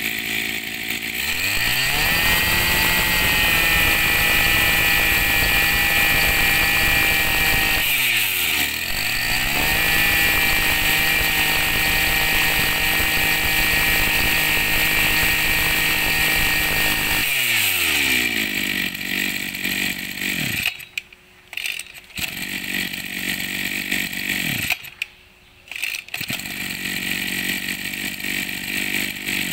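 Maru 26cc two-stroke brush cutter engine starting about a second in and revving up to a high steady speed. Around eight seconds the revs dip and climb back up, and after about seventeen seconds they fall to a steady idle. Near the end the sound cuts out briefly twice.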